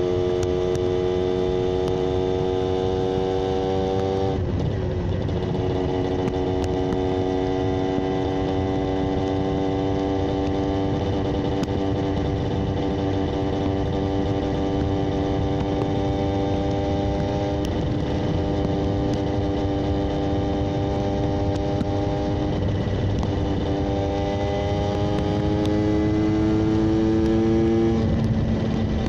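Yamaha 125ZR's 125 cc single-cylinder two-stroke engine running at steady revs, its pitch slowly climbing. The note breaks and dips briefly about four seconds in and again twice near the end, as the throttle is rolled off or a gear is changed.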